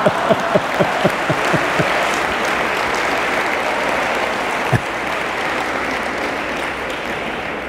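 Audience applauding steadily, easing off a little toward the end, with a man laughing over the first second or so.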